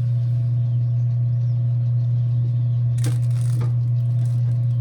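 A steady low hum, with a brief scratchy, crackling noise about three seconds in and a smaller one just after.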